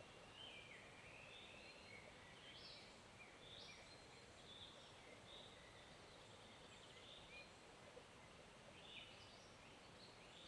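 Faint forest ambience: songbirds calling and singing over and over, above a low, steady rush of stream water.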